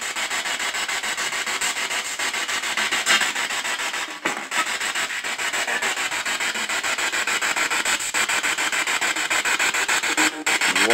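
Radio spirit box sweeping through stations: loud hissing static, chopped in a rapid, even rhythm many times a second.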